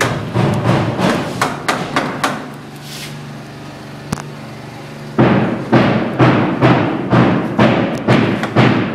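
Hammer blows on wood framing in quick runs of about three strikes a second; the blows pause for about three seconds in the middle, then resume louder about five seconds in.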